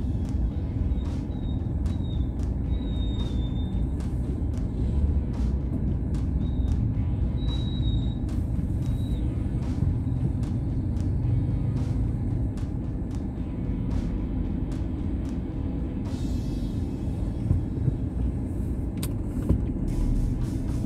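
Steady low rumble of a car driving through city traffic, heard from inside the cabin.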